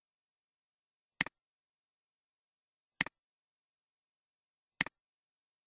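Three computer mouse clicks, evenly spaced, each a sharp double tick.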